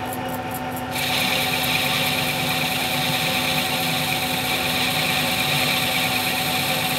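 Celtic 14 metal lathe running with a steady machine hum from its spindle drive. About a second in, a steady hissing cutting sound joins as the turning tool engages the metal bar for a very light finishing skin pass.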